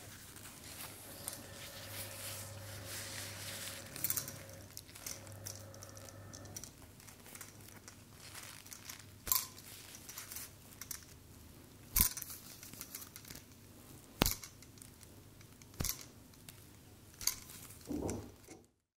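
Close-miked ASMR handling sounds: crinkling and rustling, with a low steady hum for a few seconds near the start, then a handful of sharp clicks or taps a second or two apart, ending in an abrupt cut.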